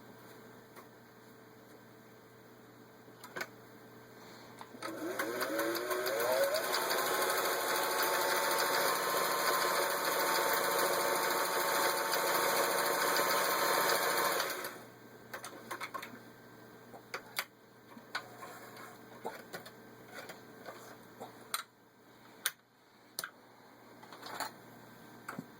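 Singer 503A sewing machine sewing the ball stitch cam pattern. About five seconds in, the motor speeds up with a rising whine and then runs steadily for about ten seconds before stopping abruptly. Scattered sharp clicks follow.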